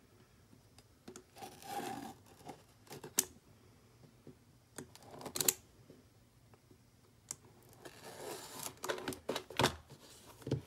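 Pocket-knife blade slitting the seal labels and plastic wrap on a cardboard box: scratchy cutting and scraping in short irregular bursts with a few sharp clicks, busiest near the end.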